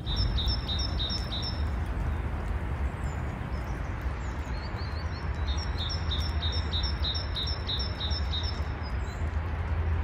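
A small songbird singing a phrase of short, evenly repeated high notes, about three a second, once briefly and again for about three seconds in the second half, over a steady low rumble and hiss.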